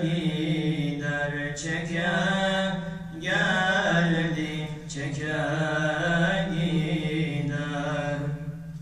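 Two young men singing a Turkish ilahi, an Islamic devotional hymn, unaccompanied, in long held, wavering phrases with brief breaks between them.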